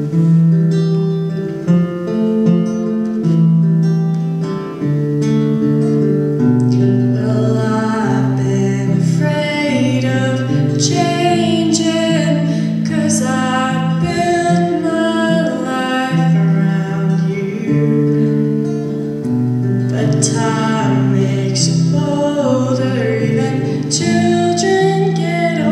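Live acoustic guitar accompanying a female singer: the guitar plays alone at first, and her voice, through a microphone, comes in about seven seconds in and carries the melody.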